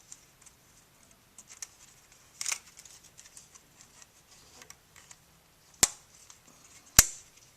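Small metal clicks and scrapes as a little spring is hooked into place on a Ferrari 348 throw-out bearing assembly, ending in two sharp snaps about a second apart near the end, the second the louder.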